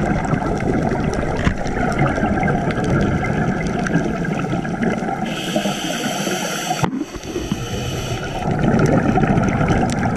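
Scuba breathing heard underwater: a steady gurgle of exhaled bubbles, then a hissing inhalation through the regulator starting about five seconds in, with the bubbling returning near the end.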